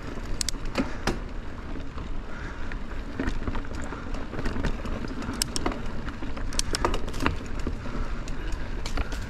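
Mountain bike riding over a rocky trail: a steady low rumble of wind and rolling tyres, with a scatter of sharp clicks and knocks as the bike runs over stones.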